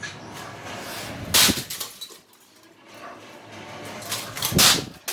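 Two heavy impacts, about three seconds apart, as a toaster is smashed: a sharp, metallic crash each time, with rattling after it.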